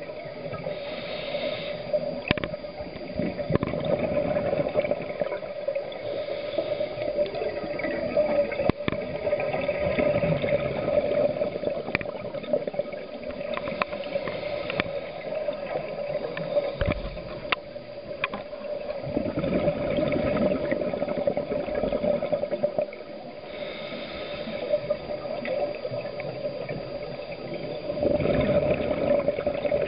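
Scuba diver breathing underwater through a regulator: a short hissing inhale, then a longer gurgle of exhaled bubbles, about one breath every ten seconds, over a steady hum.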